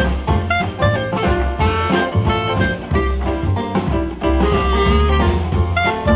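Jazz music with horns, a walking bass and a drum kit, played back through a JBL Charge 4 portable Bluetooth speaker with a strong bass.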